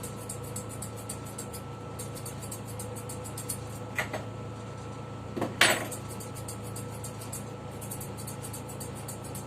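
Electric pet hair clippers running with a steady hum and fast high buzz while clipping a cat's coat. Two brief sharp noises come through, about four seconds in and, louder, about five and a half seconds in.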